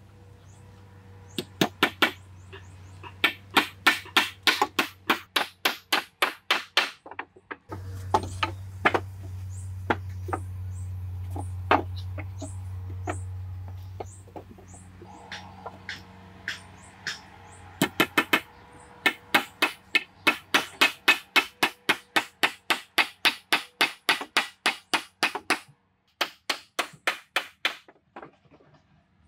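Wooden floor poles being hammered in quick, even runs of knocks, about four a second, with pauses between the runs.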